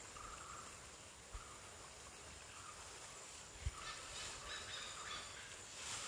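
Quiet forest ambience: a short bird call repeating every second or so over a faint, steady, high-pitched insect drone. A single soft low thump comes a little past halfway.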